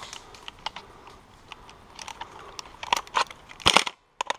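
Crunching and rustling handling noise: clothing and gear brushing and knocking against the GoPro as the wearer moves. Scattered small clicks run through it, with several loud knocks about three seconds in.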